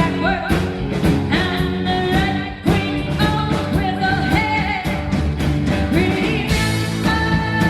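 Live rock band playing a psychedelic rock song, a singer's voice over the instruments and a steady drumbeat.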